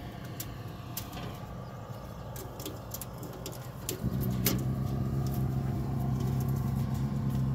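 Faint clicks and handling noises, then about four seconds in a steady low engine hum comes in suddenly and holds at an even pitch.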